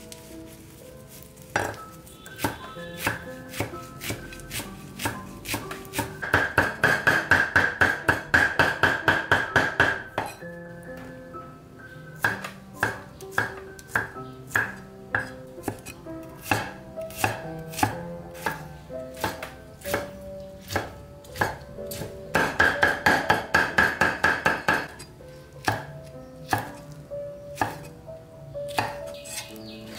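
Knife chopping on a cutting board. Single cuts come about once a second, with two quick runs of rapid chopping, about six seconds in and again about twenty-two seconds in.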